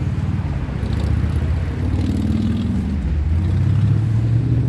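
A motor vehicle engine running steadily, its pitch rising a little in the second half as if accelerating.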